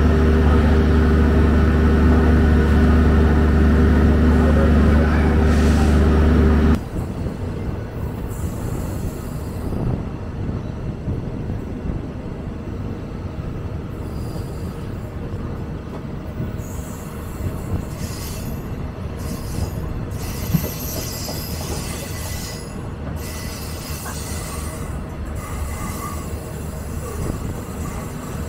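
Diesel-hauled passenger train: a loud, steady engine drone with several held tones, giving way abruptly about seven seconds in to a quieter rumble of the train running on the rails, with occasional clicks and knocks.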